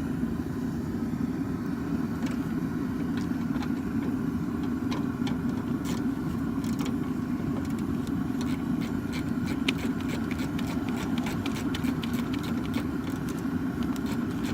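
A vehicle engine running at a steady idle. Over it, from about the middle on, a rapid run of small sharp clicks from a ratchet tightening the door-handle bolt.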